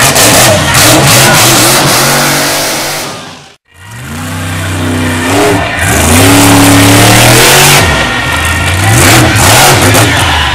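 Monster truck engines, supercharged V8s, revving hard and loud, the pitch rising and falling as the trucks accelerate and jump. The sound drops out briefly about three and a half seconds in, then the revving resumes.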